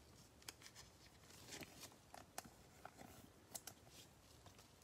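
Faint, scattered clicks and light taps of a trading card being handled and slid into a rigid plastic top loader.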